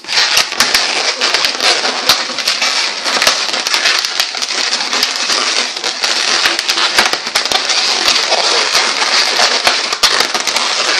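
Inflated latex twisting balloons being handled, rubbed and twisted together in the hands: a continuous dense run of rubs, creaks and sharp crackles.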